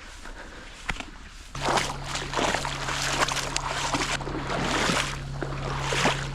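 Footsteps sloshing through shallow creek water, an irregular swish every second or so, starting about one and a half seconds in along with a steady low hum.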